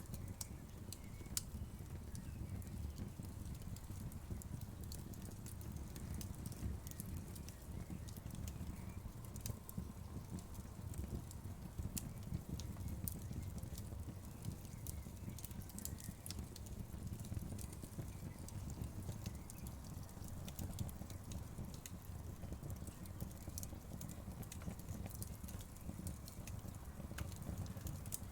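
Wood fire burning: a steady low rumble of flames with frequent small, sharp crackles and pops of burning wood scattered throughout.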